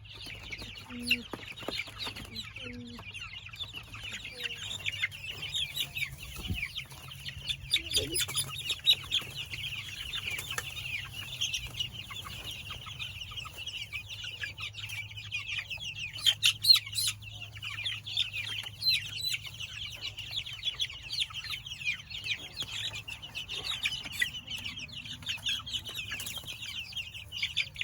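A flock of young Freedom Ranger meat chickens peeping without pause, a dense chorus of high, short cheeps, with a few sharp knocks as the birds are handled.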